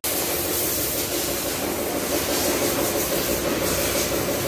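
A wash-bay machine motor running steadily, with a constant hum carrying a few steady tones and a hiss over it. It starts abruptly and does not change.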